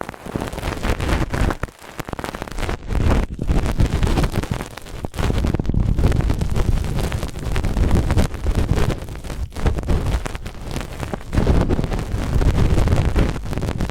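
Brush bristles scratched and rubbed right against the microphone in continuous quick strokes, a dense crackling rustle with a deep rumble, broken by a few brief pauses.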